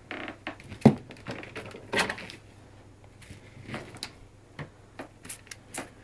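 Scattered handling clicks and knocks as a vacuum cleaner's plastic hose is moved about on the machine, with one sharp knock a little under a second in.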